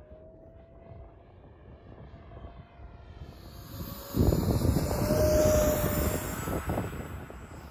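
Electric ducted fan of a Freewing Hawk T1 RC jet whining, faint and distant at first. From about four seconds in it turns suddenly much louder as the jet runs along the runway at high power, with a high hiss and a heavy low rumble, easing off near the end.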